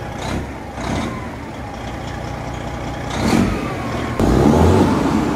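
Truck diesel engine running on a freshly swapped ECM. The throttle is tapped in several short revs over the idle, and the longest and loudest rev comes near the end.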